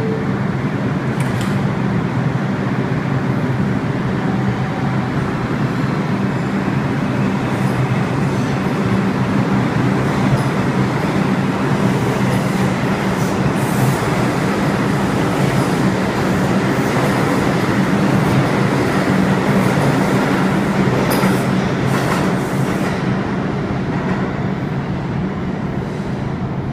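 New York City subway train pulling out of the station and running past along the platform: a steady low motor hum under the rumble of the wheels, with brief sharper wheel squeals and clicks about halfway through and again later on.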